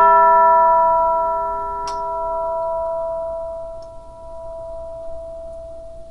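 A single tubular bell (orchestral chime) ringing out after a strike, fading slowly. The lowest partial and the higher ones die away within the first few seconds while one strong overtone rings on, so the pitch heard is that overtone rather than the weak fundamental, which makes chimes sound really funny.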